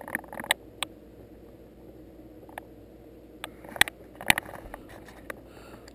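A few short, sharp light clicks and taps scattered over a steady low hum, the loudest pair a little under a second apart near the middle.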